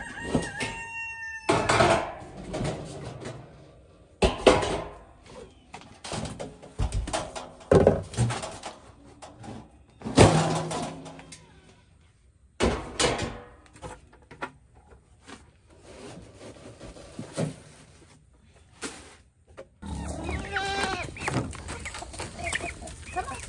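Galvanized metal trash-can feed bins being worked: lids knocking and clanking, and feed being scooped and poured into a plastic bucket, with irregular loud clanks among quieter rustling and scraping. A rooster crows at the start, and goats bleat in a wavering way near the end.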